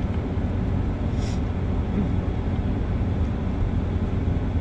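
Steady low rumble of a car heard from inside the cabin, with a short hiss about a second in.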